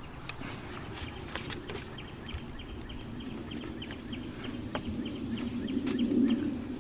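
Small clicks and knocks of gloved hands working a plastic quick-connect hose fitting and its wire retaining clip in a car engine bay, over a steady low hum that grows louder near the end. A faint, quick, even ticking runs from about two seconds in to about six.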